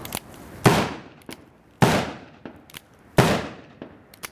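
Colt Single Action Army revolver fired three times, a little over a second apart, each shot ringing off and fading. Fainter clicks fall between the shots as the hammer is cocked for each one.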